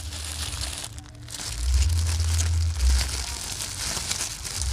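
Close-up eating sounds: crunchy chewing with crinkling and crackling, over background music with a heavy bass line.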